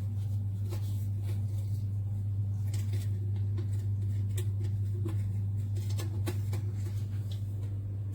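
Small submersible pump of a stainless-steel cat water fountain humming steadily, with scattered light ticks and drips over it.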